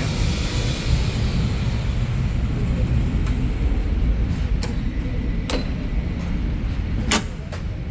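Milling machine running with a steady low rumble while its table power feed winds down, its higher whine fading away in the first second or so. Then come several sharp clicks a second or so apart, the loudest near the end, like the feed lever and switches being worked.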